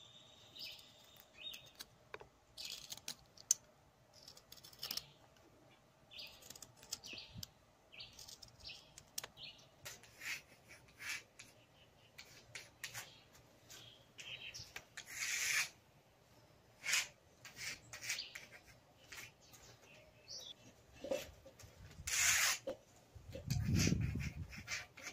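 Birds chirping, mixed with short scratchy strokes of a pencil drawing on a concrete wall. A low thump comes near the end.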